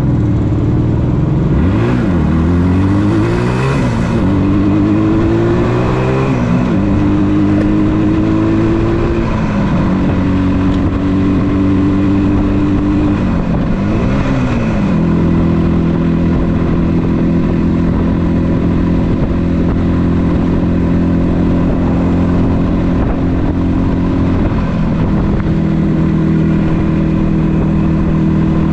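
1976 Yamaha RD400's two-stroke parallel-twin engine pulling away and accelerating through the gears. Its pitch climbs and drops back at each upshift over the first fifteen seconds or so, then holds steady at cruising speed.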